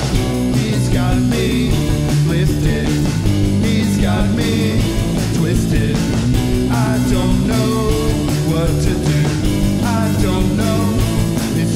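Rock band playing a song, with electric guitar, bass and drums and a singing voice over them.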